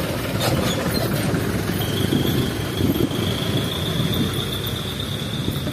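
Car engine idling with the air-conditioning running, heard from inside the cabin, a steady low rumble. A thin, steady high tone sets in about two seconds in.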